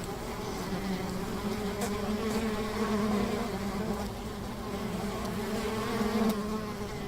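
Many bees buzzing together: a dense, steady hum whose pitch wavers slightly as individual bees come and go.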